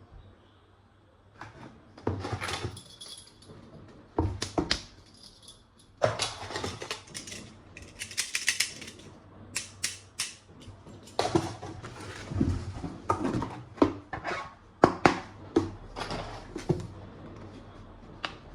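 Hands handling plastic toy guns and their packaging: irregular sharp plastic clicks and knocks with short rustling, busiest through the middle and later part.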